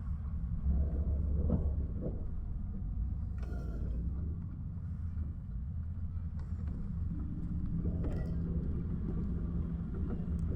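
Car driving, a steady low rumble of engine and road noise, with a couple of brief rustling noises.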